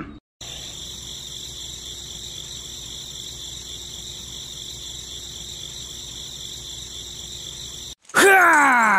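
Steady chorus of crickets chirping. Near the end it gives way to a much louder whining sound that falls in pitch in several repeated glides.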